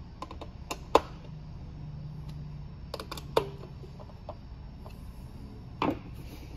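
A few sharp clicks and knocks of hands handling the aluminium shuttle box and its screwed-on faceplate. The loudest is about a second in, with more around three seconds and near the end, over a faint low hum.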